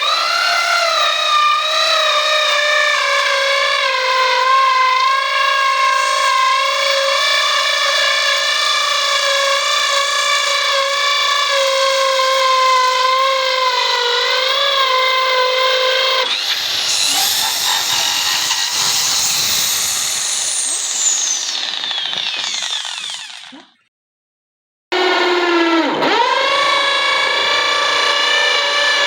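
Electric drill driving a hole saw: a steady, high motor whine, joined a little over halfway by a rough rasping as the saw cuts, with a long falling whistle, until it stops abruptly. After a short silence it whines again, its pitch dipping sharply twice as the saw bites and the drill bogs under load.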